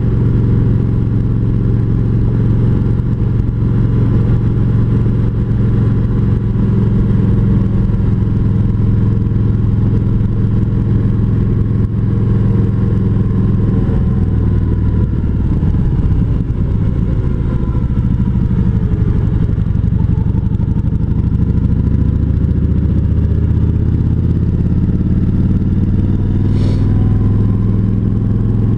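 Kawasaki Vulcan 1700 Voyager's V-twin engine running steadily under way, heard from a helmet-mounted camera. The engine note drops about halfway through and rises again in the last third, as the bike slows and speeds back up.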